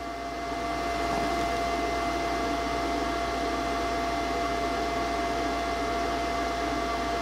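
Steady mechanical hum with a constant whine running through it, swelling slightly about a second in and then holding level.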